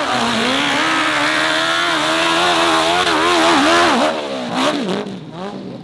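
A high-powered hill-climb dirt bike engine running at high revs under hard throttle. Its pitch wavers up and down continually, dips sharply twice about four and five seconds in, then falls away near the end.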